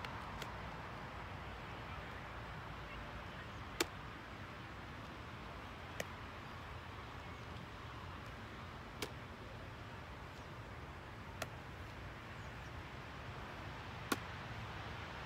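Faint steady outdoor background noise, broken about every two to three seconds by a short sharp slap, six in all: a football smacking into a player's hands as it is caught during a game of catch.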